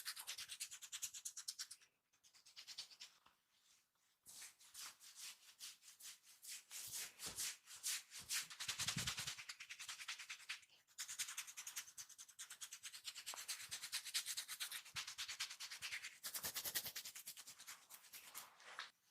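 Hands rubbing and scratching in a massage, as fingertips scratching through hair or palms working over skin: quick, regular strokes, many a second, with a few short pauses.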